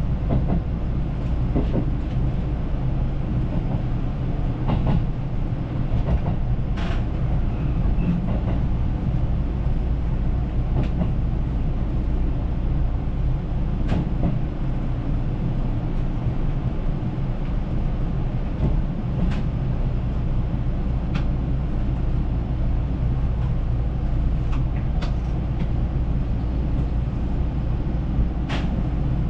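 Electric train running along the track, heard from inside at the front window: a steady low rumble with sharp clicks and knocks every few seconds.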